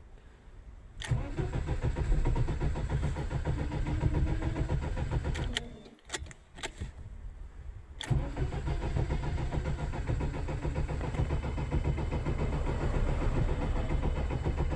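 Lada Priora engine being started twice on its starter: test starts after a new fuel pump was fitted. A click about a second in is followed by several seconds of engine sound that stops near the middle. A second click about eight seconds in brings engine sound that carries on to the end.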